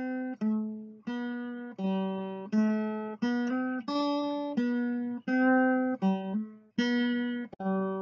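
Background music: a melody played one note at a time on a plucked guitar, each note ringing and fading into the next.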